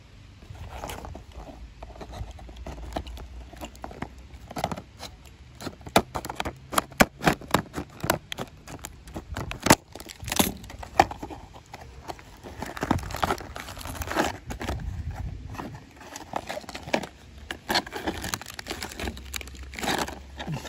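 Stiff plastic blister packaging being handled and pried open by hand, crinkling and crackling with many sharp clicks. Near the end a small plastic bag of nuts rustles.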